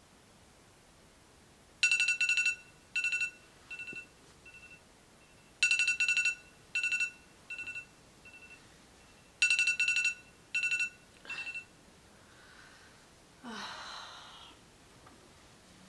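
Electronic alarm tone going off to wake a sleeper: three rounds of high beeps about four seconds apart, each round a couple of loud beeps followed by softer, fading repeats. The alarm stops, and a couple of seconds later a woman lets out a sleepy sigh.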